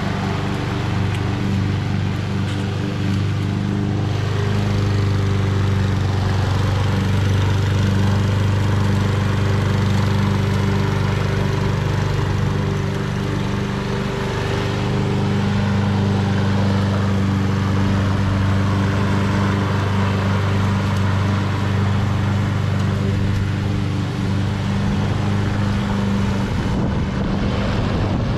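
Honda HRN216VKA lawn mower's single-cylinder Honda GCV170 four-stroke engine running steadily while mowing grass with the self-propel drive engaged.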